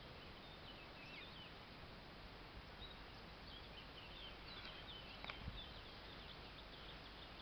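Faint, high, quick bird chirps over a quiet outdoor hiss, in a short run about a second in and a longer run from about three seconds on, with a single soft knock about five seconds in.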